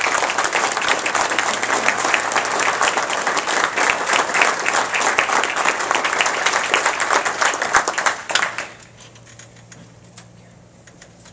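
Audience applause: many people clapping together, loud and dense for about eight and a half seconds, then dying away fairly quickly to a few scattered claps.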